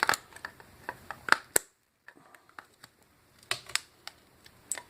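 Irregular small clicks and taps from the thin sterling silver edges of a brush back being pried and bent down, the sharpest two a little over a second in, with another short cluster near three and a half seconds.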